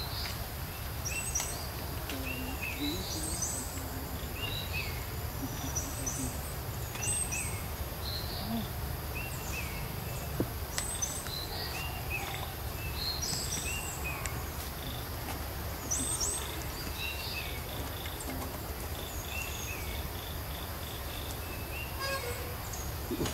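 Outdoor ambience of birds chirping again and again, short hooked notes repeating every second or two, over a steady low rumble.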